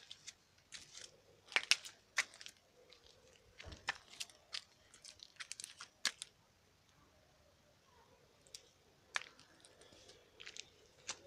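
Irregular sharp clicks and crackles in quick clusters, thinning out to a few scattered clicks after a quiet spell past the middle.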